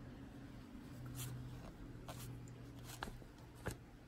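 A small hand spray bottle spritzing water onto a paper colouring page in short bursts, about a second apart, followed by a couple of light clicks, with a faint steady low hum underneath.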